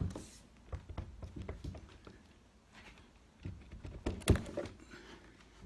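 Scattered knocks and handling noise as a door is lifted off its hinges and out of its frame, with the loudest knock about four seconds in.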